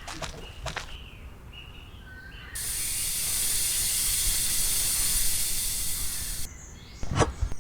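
A steady high hiss, like spraying water or escaping air, lasting about four seconds and starting and stopping abruptly, with a sharp knock near the end.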